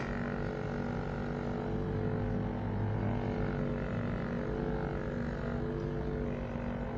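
Vibracussor vibration-therapy device running against the knee: a steady electric motor hum.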